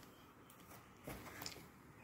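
Faint crinkling of clear plastic parcel wrapping being touched, a short flurry about a second in, otherwise near silence.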